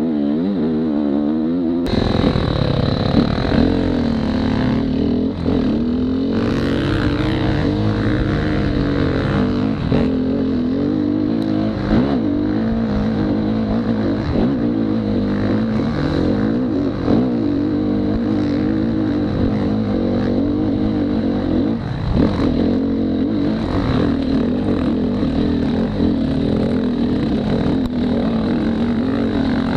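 Dirt bike engine being ridden off-road, its pitch rising and falling over and over as the throttle is opened and closed.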